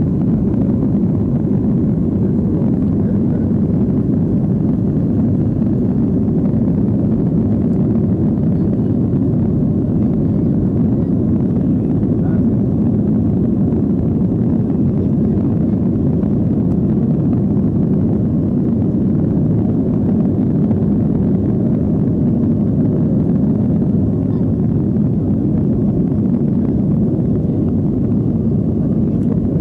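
Steady low rumble of a Boeing 757-200's jet engines and rushing air heard inside the passenger cabin during the climb just after takeoff.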